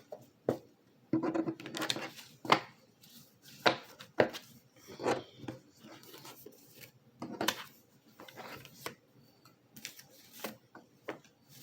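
A deck of tarot cards being shuffled and handled: a string of short, sharp snaps and brief papery rubs at irregular intervals.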